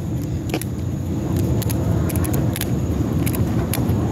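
Steady low rumble of handling and movement noise on a handheld phone microphone while walking, with scattered light clicks and ticks.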